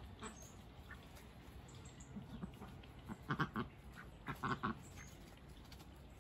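Domestic ducks quacking: a quick run of three or four quacks, then another short run about a second later.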